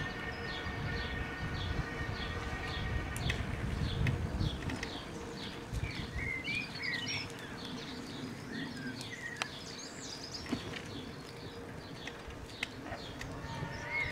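Electric bicycle on the move: tyres rumbling over brick paving with wind on the microphone, and a steady whine that fades over the first few seconds. Birds chirp briefly in the middle and again near the end.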